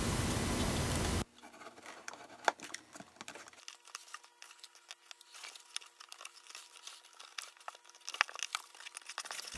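About a second of steady hiss that cuts off suddenly, then faint crinkling and scattered small ticks from a cardboard cereal box and paper being handled.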